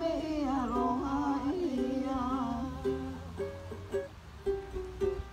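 Ukulele and acoustic guitar accompanying a hula song. A voice sings a sliding, wavering line for the first couple of seconds, then the plucked strings carry the tune in short repeated notes.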